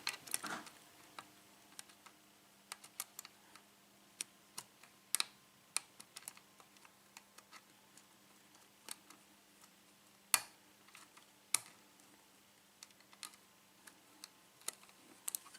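Faint, irregular clicks and ticks of a lock pick working the pin stack of a 6-pin euro cylinder under tension, with one sharper click about ten seconds in. A faint steady hum sits underneath.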